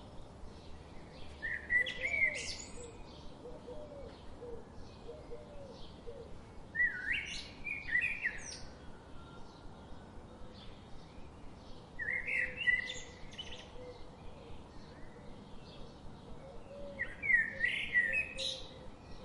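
Songbird singing a short, loud phrase four times, about every five seconds, with fainter chirping between the phrases.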